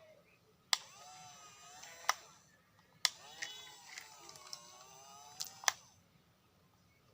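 Small electric gear motors of a remote-control toy wheel excavator whirring in two runs, their pitch bending up and down as they work. Each run starts and stops with a sharp click.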